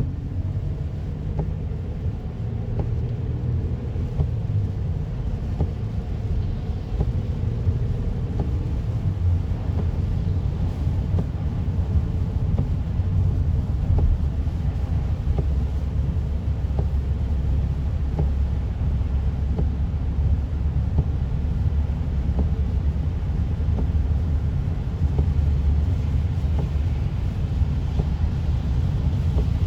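Steady low rumble of a car driving on a highway, heard from inside the cabin: engine and tyre noise.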